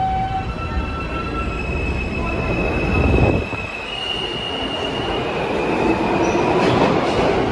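R160A-1 subway train pulling out of an underground station and gathering speed: a high electric whine from the propulsion that steps up in pitch, over the rumble of the wheels and cars, with a brief louder surge about three seconds in.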